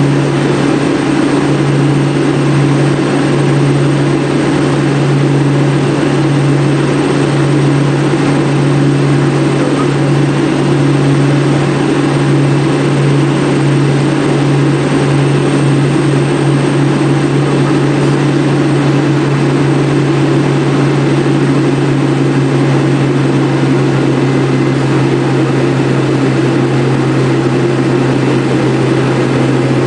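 Single-engine light aircraft's piston engine and propeller droning steadily, heard from inside the cockpit on final approach and landing. The drone has a slow regular pulsing that smooths out about halfway through.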